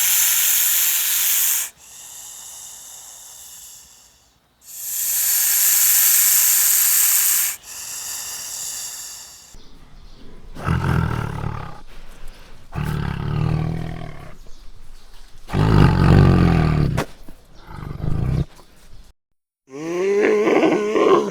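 A cat hissing twice in long, loud hisses, then a big cat growling and roaring in a run of low, pulsing calls.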